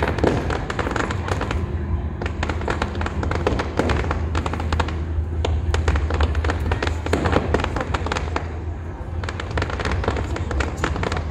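Aerial fireworks bursting overhead: dense crackling and popping from crackle stars, coming in waves a few seconds apart over a steady low rumble.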